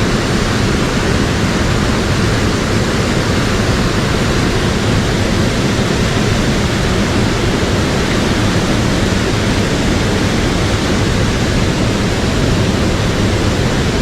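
Mountain stream water rushing over rocks: a loud, steady hiss with no breaks.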